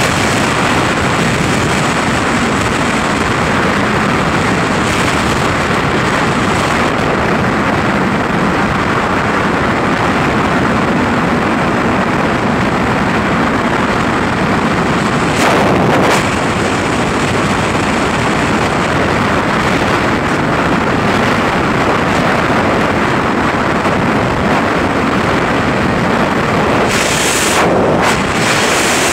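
Freefall wind rushing over the camera microphone during a tandem skydive with the drogue chute out: a loud, steady roar of air across all pitches, with brief louder flurries about halfway through and near the end.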